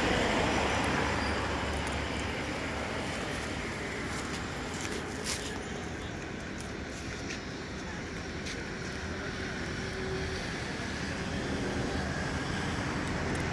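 Steady outdoor background rumble, easing off in the middle and building again toward the end, with a few faint clicks.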